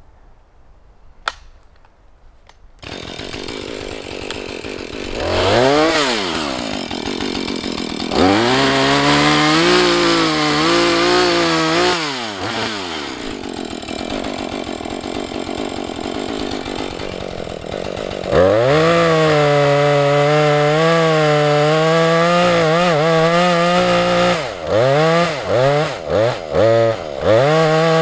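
Husqvarna 435 two-stroke chainsaw coming on about three seconds in, then revved up to full throttle twice for long cuts into a tree, holding steady revs under load and falling back to idle in between. Near the end the throttle is blipped several times in quick succession.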